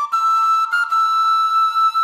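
Background music: a single melody line, a few quick notes and then one long high note held steadily.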